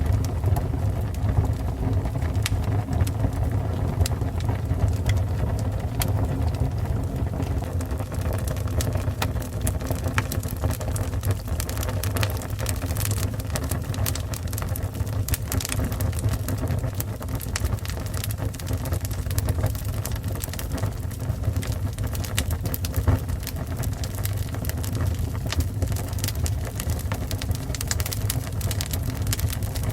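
Fire burning: a steady low rumble with irregular sharp crackles and pops throughout.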